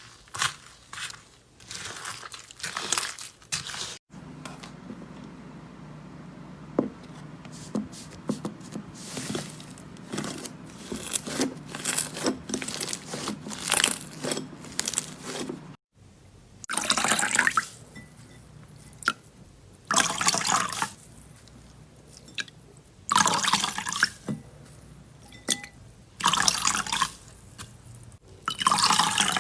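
Slime being squished and worked by hand: wet, sticky clicks and pops. From about halfway, longer squelching hisses come every few seconds.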